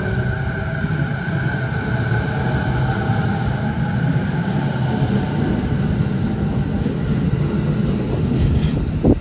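JR 209 series electric train accelerating away from the platform: a steady motor whine over the rumble of the wheels. It gets louder near the end as the last car goes by.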